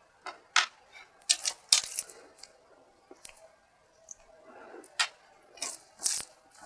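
Close-up eating sounds: a person chewing a mouthful of rice and fish curry, a series of short wet clicks and smacks at uneven intervals, bunched in the first couple of seconds and again near the end.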